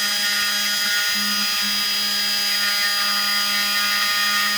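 Handheld rotary tool with a diamond bit running steadily at low speed, its motor giving an even whine while the bit is held against a citrine crystal under water to grind a pilot hole.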